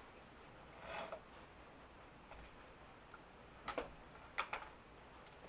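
Small metal clicks and knocks from tools and chainsaw parts being handled while the bar and chain are fitted: a single click about a second in, then a pair and a quick cluster of three a little past the middle.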